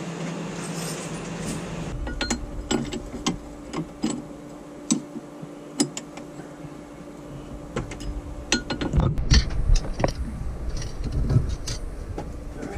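Hand tools on a sailboat's propeller shaft coupling: sharp metal clinks, roughly one a second, as a wrench works the coupling bolts to separate the shaft from the transmission. Heavier knocks and thumps follow in the last few seconds. A steady hum comes before the clinking, in the first two seconds.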